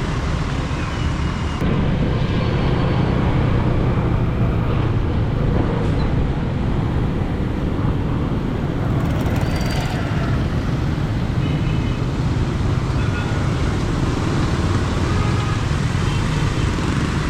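Steady road traffic noise from vehicles passing on a city street, with a few short, faint high tones scattered through it.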